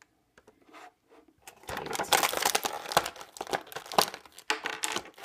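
Plastic and cardboard toy packaging being handled and pulled apart: a few faint clicks, then from about a second and a half in a busy run of crinkling and tearing.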